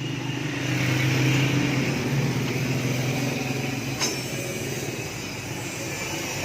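Steady hum of a running motor vehicle engine, with a single sharp click about four seconds in.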